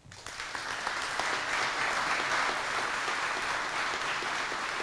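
Audience applauding: many hands clapping, starting suddenly and going on at a steady level.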